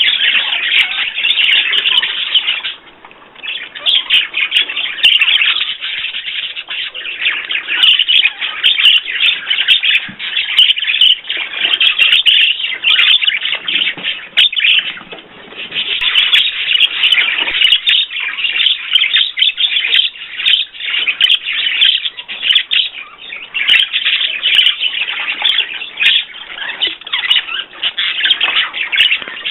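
Small pet birds chirping and twittering continuously in a dense, fast chatter, with a short lull about three seconds in.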